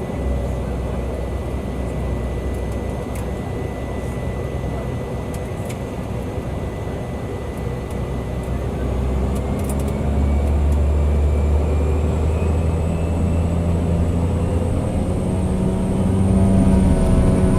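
The single Pratt & Whitney PT6A turboprop engine of a Cessna 208 Caravan runs steadily. About nine seconds in, the power comes up: the propeller drone grows louder and a high turbine tone rises in pitch, as takeoff power is applied.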